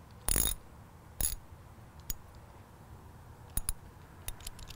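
Ratchet socket wrench clicking in short bursts as a lag bolt through a metal shutter tieback is snugged into stone, followed by a few light metallic clicks and clinks near the end.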